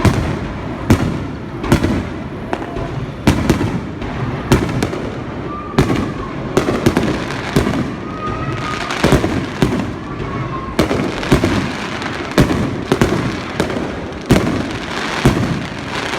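Aerial fireworks bursting in quick succession, a loud boom about every second, with continuous crackling between the bursts.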